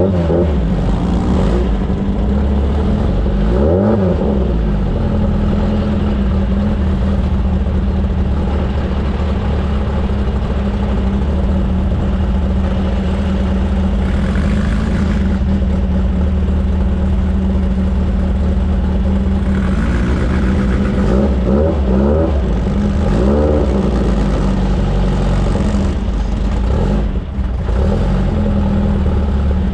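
Off-road race vehicle's engine running at a steady pitch throughout, with brief rises and falls in revs about 4 seconds in and again about 20 to 23 seconds in.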